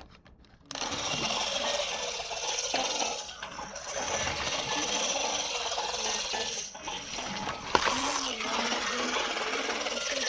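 A small electric motor and plastic gears whirring steadily, starting suddenly just under a second in, with a few brief dips and one sharp click about two-thirds of the way through.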